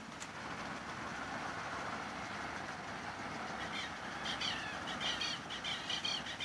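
Fire engine going by: steady engine and road noise, with a rapid high warbling siren coming in about halfway through.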